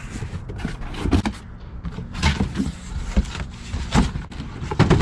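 Irregular knocks, clunks and rattles of tools and equipment being handled and set down.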